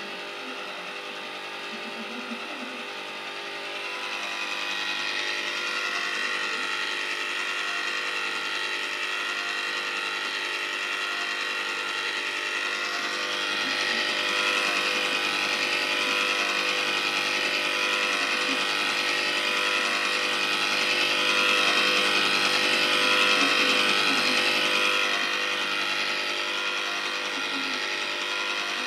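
Andrew James electric ice cream maker running: its motor turns the paddle that churns the mixture in the freezer bowl, giving a steady whine with several tones. It grows louder about four seconds in.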